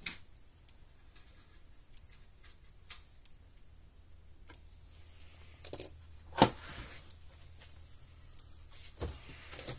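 Scattered small clicks and taps of a screwdriver and the plastic case parts of a Gallagher B80 fence energizer being handled as it is put back together, with one sharp knock about six and a half seconds in and a smaller one about nine seconds in.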